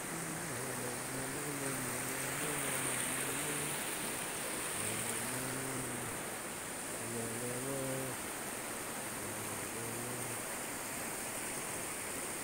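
Steady rushing of a fast, flooded river. Over it, in four stretches, a man hums in a low voice, holding level notes that step up and down like a tune.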